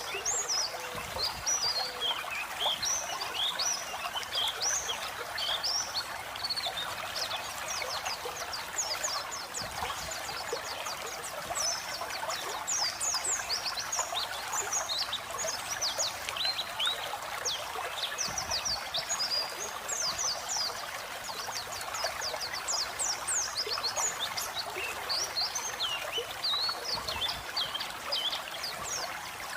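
White-eye (pleci) twittering in a fast, unbroken run of short, high chirps over a steady trickle of flowing water.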